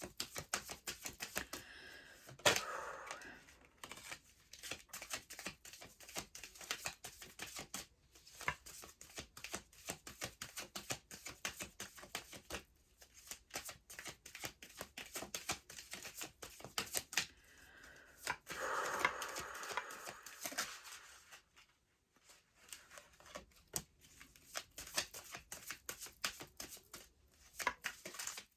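A deck of oracle cards being shuffled by hand: a dense run of quick card flicks, with a louder swish a couple of seconds in and again about two-thirds of the way through.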